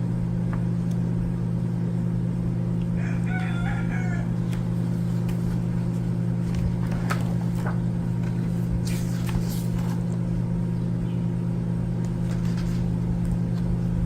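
A steady low hum throughout, with a brief pitched call about three seconds in and a few faint clicks and rustles.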